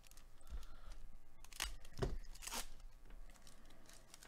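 A trading-card pack wrapper crinkling and tearing as it is opened by hand. The loudest crackling rips come about one and a half to two and a half seconds in.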